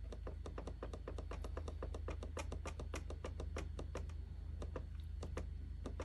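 The down-arrow key on an ABB ACQ580 drive's control panel keypad clicking as it is pressed over and over, about five or six clicks a second, over a faint low hum.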